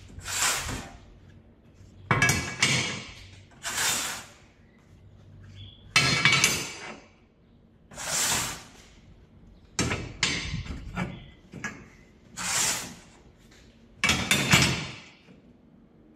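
Lengths of steel angle iron handled and laid into a steel frame on a metal workbench: a clank or a scrape every couple of seconds as pieces are set down and slid into place.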